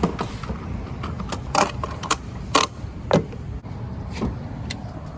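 Steady low rumble of a car on the move, heard from inside the cabin, with a handful of short sharp clicks and knocks at irregular moments.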